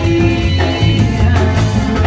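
Live band playing upbeat Latin dance music, with keyboard, a strong bass line and a steady drum beat.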